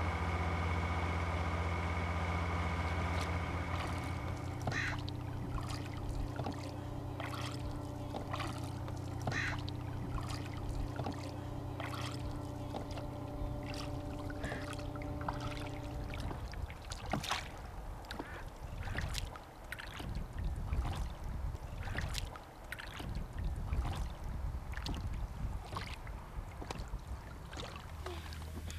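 Boat engine running with a steady low hum that drops back after about four seconds and is gone by midway. Throughout, irregular knocks, creaks and splashes from the oars of a small rowboat working in their oarlocks.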